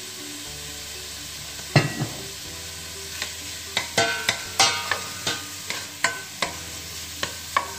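Diced bacon sizzling in a hot stainless steel pot while a plastic spatula stirs it, scraping and knocking against the pot. There is one scrape about two seconds in, then a quick run of knocks and scrapes about twice a second.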